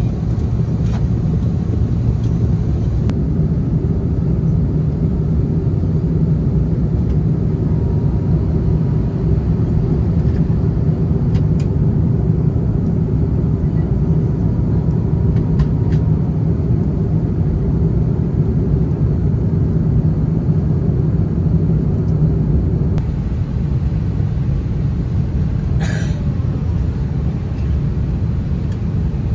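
Steady low rumble of cabin noise inside an Airbus A350 airliner, engines and airflow running. The rumble becomes a little lower and duller about 23 seconds in.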